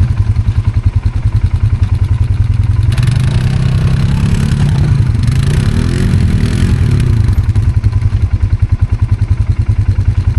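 ATV engine running close by with a steady low throb, the revs rising and falling a few times in the middle.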